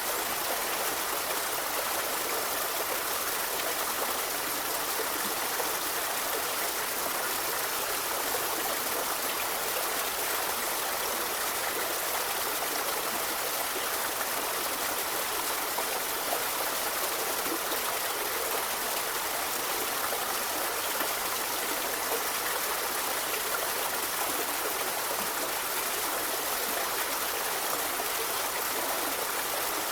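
A river flowing steadily over rocks, an even, unbroken rush of water.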